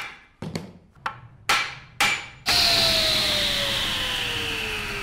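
Logo sound effect: a run of sharp knocks about two a second, then about two and a half seconds in a sudden loud swell of noise with a single tone that slowly falls in pitch as it gradually fades.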